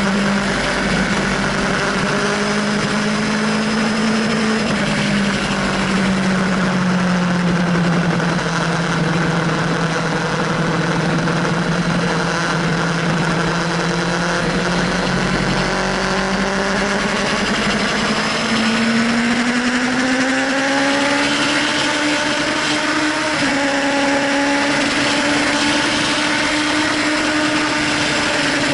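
Sport motorcycle engine running hard at high revs under heavy wind rush on the bike-mounted microphone. The pitch sags slowly through a long leaned-over corner, then climbs steadily past the middle as the bike accelerates out onto the straight.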